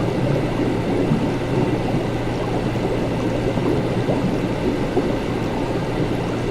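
Laboratory ambience: a steady low hum under a dense, even wash of noise, with faint steady high tones and no distinct events.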